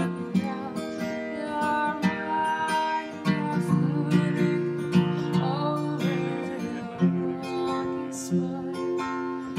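Background music led by a strummed guitar, with steady chords and regular strums.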